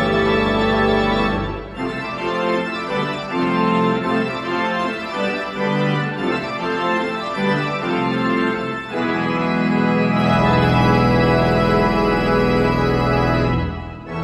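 Pipe organ playing sustained full chords over a deep pedal bass. About two seconds in it drops to lighter moving lines without the bass, then returns to full chords with the bass past the middle, with a short break near the end.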